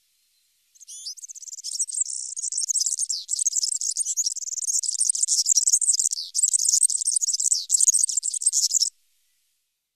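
European serin singing: a fast, high-pitched, jingling song of rapid notes that starts about a second in, runs on for about eight seconds and stops abruptly.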